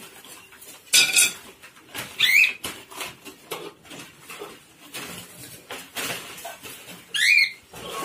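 Caged budgies and cockatiels calling: three loud, sharp calls about a second in, around two seconds in and near the end, over light clicking and rattling of the wire cage as it is handled.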